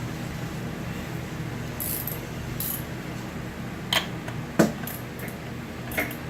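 Small metal mounting hardware handled while a fog light is fitted: a couple of short scraping hisses, then three sharp metallic clicks in the second half, over a steady low hum.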